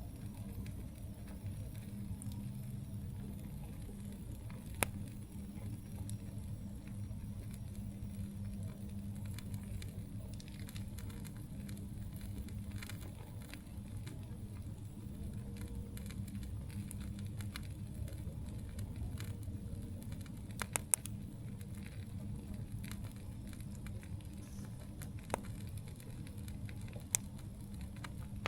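Wood campfire burning, a steady low rustle with scattered crackles and a few sharp pops, the loudest pair about two-thirds of the way through.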